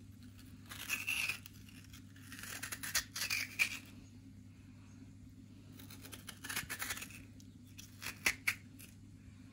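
Metal spoon scraping the soft flesh out of a peeled potato half in four short bursts of scooping, over a steady low hum.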